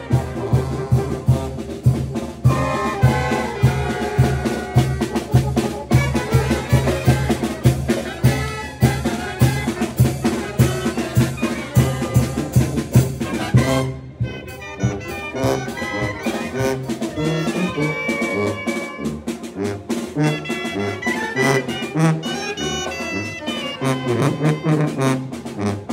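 Mexican brass band (banda de viento) playing: trumpets and trombones over a steady bass beat, with sharp snare drum strokes. About fourteen seconds in, the music dips briefly, then carries on with a changed rhythm.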